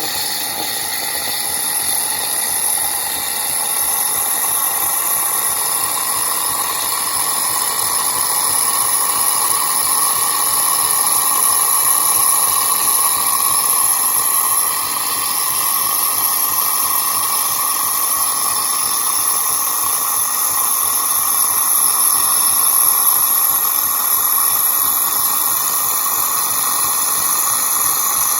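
Gaggia Anima Prestige super-automatic espresso machine frothing milk for a cappuccino through its milk carafe: a steady steam hiss.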